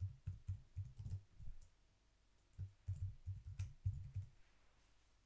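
Typing on a computer keyboard: a quick run of keystrokes, a pause of about a second, then a second run that stops about four seconds in.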